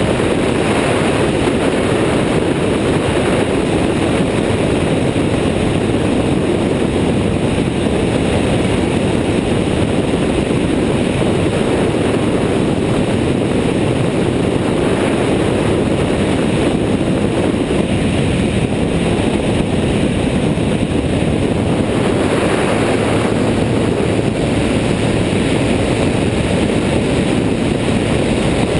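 Airborne XT Tundra weight-shift ultralight trike in flight: its engine and pusher propeller running steadily, mixed with wind rushing over the wing-mounted microphone.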